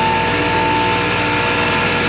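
Sandpaper rubbed by hand along a sword handle's scales: a hiss that starts about a second in and stops near the end, over a steady droning hum.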